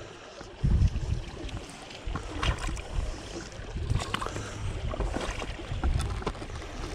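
Gusting wind rumbling on the microphone in uneven swells, over a faint wash of water, with a few light knocks.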